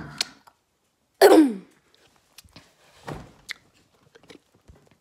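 A girl's short throaty sound, falling in pitch, about a second in, followed by a fainter one at about three seconds, with small mouth clicks between.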